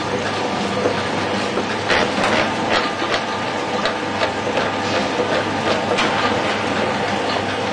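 Markem 195 hot-foil printing and flatbed die-cutting label machine running: a steady mechanical clatter with repeated sharp clicks.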